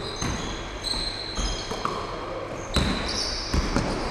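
Basketball game on a wooden gym floor: sneakers squeaking in short high chirps, with a ball bouncing and the knock of footfalls.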